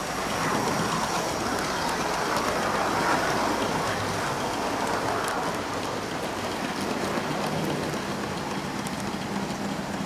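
Model trains running on the layout's track, an even whirring and rumbling of motors and wheels on rail. It grows louder from about half a second in and is loudest around three seconds as a train passes close.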